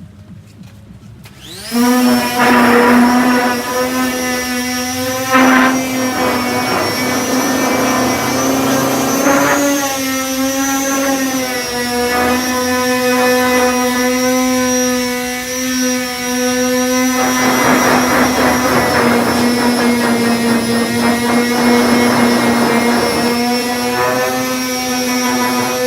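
Electric disc sander starting up about two seconds in and running steadily with a high hum. Stretches of rougher rasping come in and out as the 240-grit disc is worked over body filler.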